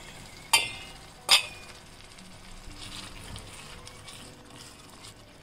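Two sharp metallic clanks of a small steel pot lid, each ringing briefly, about half a second and a second and a half in. Then a wooden spoon stirs chicken gizzards in masala gravy in a small pan, with a quiet sizzle.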